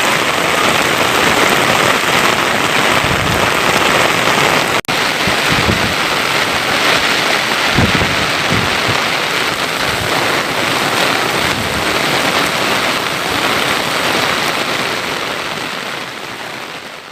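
Torrential rain pouring down, a dense steady hiss, with a few low thuds about eight seconds in. The sound fades out near the end.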